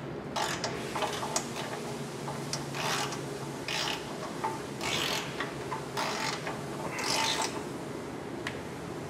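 A ratchet with a 14 mm socket clicking in short bursts, about one a second, as it runs the bolts into the catalytic converter pipe's rear exhaust flange.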